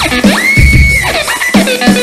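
Instrumental rock music: an electric guitar lead that slides and bends in pitch, rising into a high held note about half a second in, over a pulsing low bass and drum backing.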